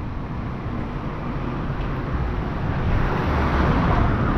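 Road traffic: a car going by, its engine and tyre noise swelling louder through the second half.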